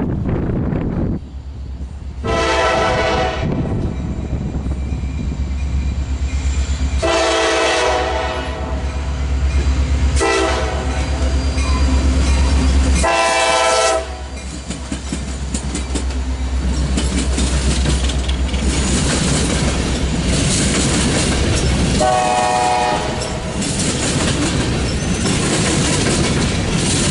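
Norfolk Southern diesel freight locomotives passing close by, their engines running with a deep rumble while the horn sounds long, long, short, long, the grade-crossing signal. The train's cars then roll past with wheels clacking on the rail joints, with two more horn blasts later on.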